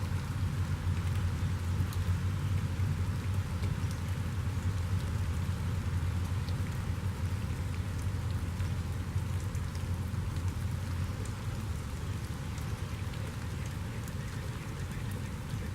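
Steady rainfall, an even hiss with a heavy low rumble and scattered individual drops ticking through it.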